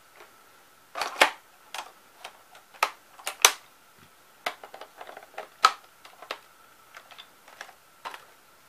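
Irregular sharp clicks and knocks of hard plastic parts being handled: a Nerf blaster and its battery box picked up, fitted and set down. A faint steady high tone runs underneath.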